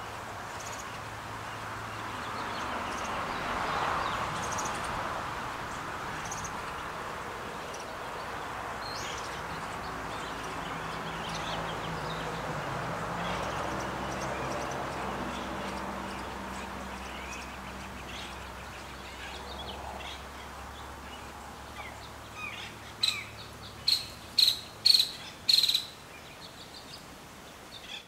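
Birds chirping on and off over a faint steady low hum, with a rushing noise that swells and fades about four seconds in. Near the end come about five loud, sharp chirps in quick succession.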